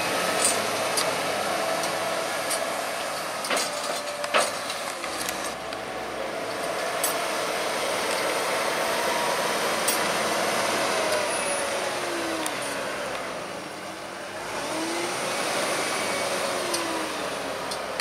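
JCB 435S wheel loader's diesel engine running and revving up and down while it drives and works its buckrake. There are a few sharp knocks in the first five seconds.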